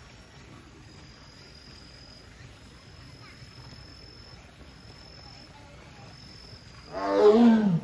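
Amur tiger giving one loud, moaning call close to the end, lasting under a second and dropping in pitch as it ends. She is calling for her keeper to open the closed den door.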